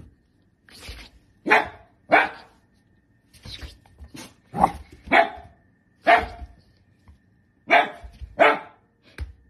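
Long-haired dachshund barking in quick pairs: seven loud barks with a few softer ones between. It is play barking, made while the dog play-bows and wags its tail.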